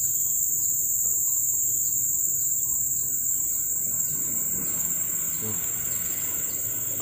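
Steady, shrill drone of insects, with a faint chirp repeating about twice a second.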